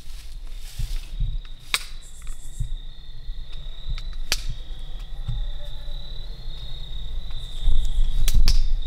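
Night insects, crickets, singing a steady high trill, with footsteps and brush rustling as someone pushes through undergrowth. A few sharp snaps are heard, and the thumps of movement grow louder near the end.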